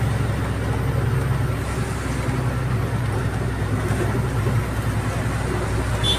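Steady engine and road drone of a moving vehicle on a highway, heard from inside the cab.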